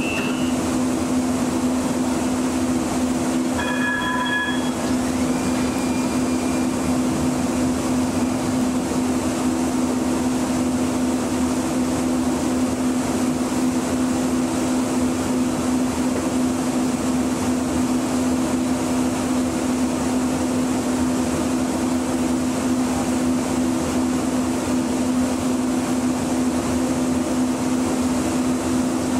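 Steady electric hum of a Muni light rail vehicle, heard from inside the driver's cab while the train stands still at a signal. A short electronic chime sounds about four seconds in.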